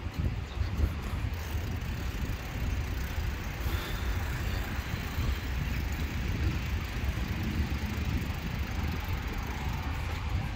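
Steady, uneven low rumble of wind buffeting the microphone, over a faint outdoor hiss.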